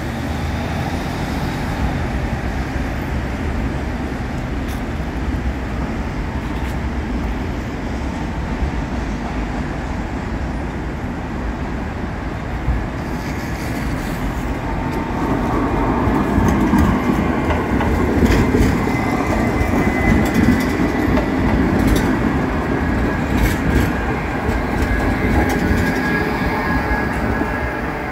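Cologne Stadtbahn light-rail train running in on street tracks and passing close by. Over steady traffic noise, the rumble of its wheels on the rails grows louder from about halfway through. A thin high tone joins it, and a few sharp clicks come as the wheels cross the rail joints.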